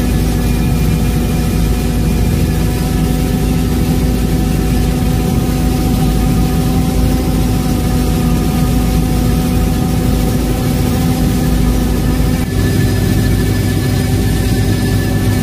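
Robinson R66 helicopter in cruise flight, heard from inside the cabin: the Rolls-Royce RR300 turboshaft and rotors make a loud, steady drone with a constant whine. About twelve seconds in, the tone shifts slightly.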